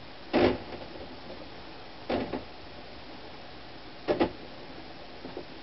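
Hands handling a ribbed boilie rolling board and its bait balls: short knocks and clatters, the loudest about half a second in, another about two seconds in and a double knock about four seconds in, over a steady hiss.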